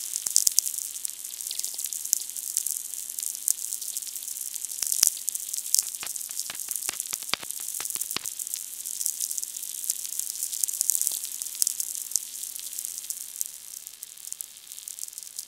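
Audio output of a VLF electric-field receiver: a dense crackling hiss of static with sharp clicks, most of them around the middle, over a steady low hum.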